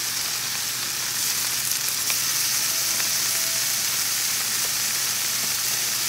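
Ham slices sizzling steadily in a frying pan, a loud, even hiss, with a few faint clicks over it.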